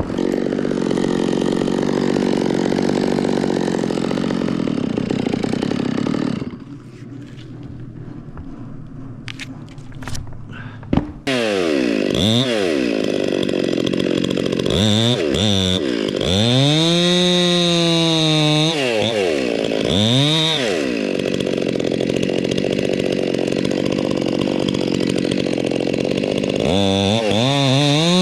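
Electric chainsaw running and cutting wood, dropping away about six seconds in. From about eleven seconds in, it speeds up and slows down again and again, its pitch swinging up and down.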